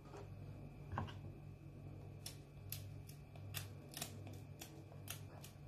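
Small knife peeling the skin off bitter kola nuts: faint, irregular clicks and scrapes of the blade against the nut's hard skin.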